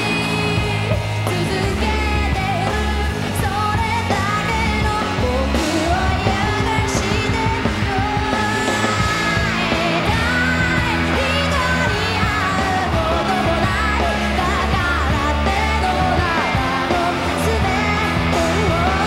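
Live rock band playing, with a woman singing over electric guitar, bass and drums.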